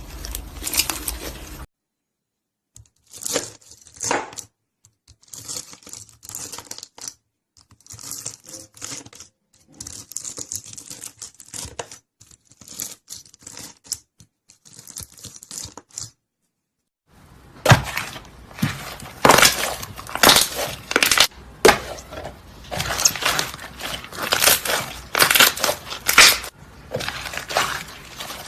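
Slime being pressed, poked and stretched by hand, giving a dense crackling of small clicks and pops. It comes as several separate clips with short silent breaks between them, and the last clip, from about two-thirds of the way in, is much louder.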